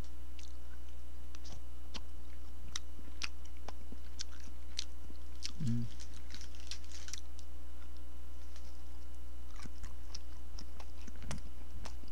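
Close-miked chewing of a doughy old-style fish-and-flour sausage: scattered wet mouth clicks and smacks, with a brief hum from the eater about halfway through.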